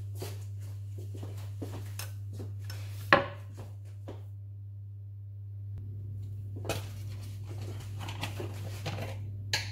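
Kitchenware being handled: scattered clinks and knocks of bowls and utensils, with one sharp knock about three seconds in and a busier run of clatter in the last few seconds, over a steady low hum.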